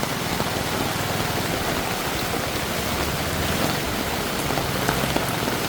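Rain falling steadily onto a flooded street, an even hiss of drops on the water.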